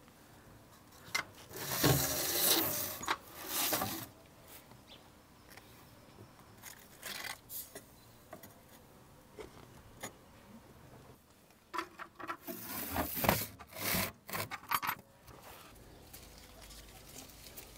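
Metal rods scraping and clinking against the rim of a tandoor as chickens hung on them are lowered in. There are long scrapes near the start and a run of sharp clinks and scrapes later on.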